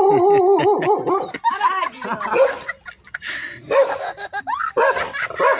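Dogs barking in a fast run of short barks, easing off about halfway through and starting again near the end.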